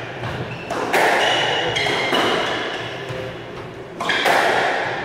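Squash ball struck hard by rackets and cracking off the court walls, a few sharp hits each ringing out in the echoing court.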